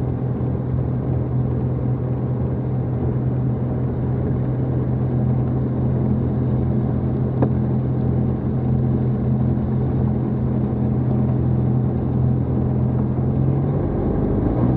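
The air-cooled 2.2-litre four-cylinder Jabiru engine of a Jabiru SP500 light aircraft, running steadily at low power while taxiing, heard from inside the cockpit. Near the end the engine note starts to rise as power comes up.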